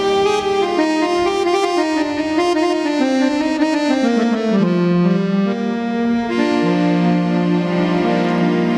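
Harmonium playing a melodic interlude: a run of notes stepping downward, then longer held notes from about halfway through.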